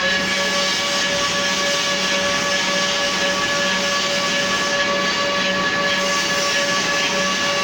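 CNC shoe-last turning machine running, a steady high whine from the spindle over a continuous hiss of cutting.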